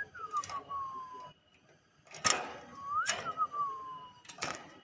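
A clear whistle that rises quickly, wavers at the top and slides slowly back down, heard twice a few seconds apart, siren-like. Sharp clicks or knocks come just before the second whistle and again near the end.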